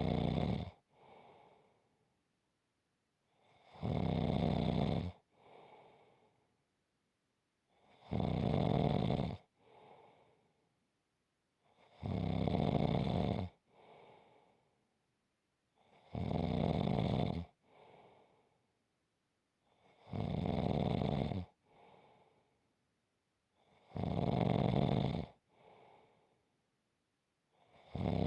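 Slow, regular snoring: a loud snore lasting a little over a second, then a quieter, shorter breath, repeating about every four seconds.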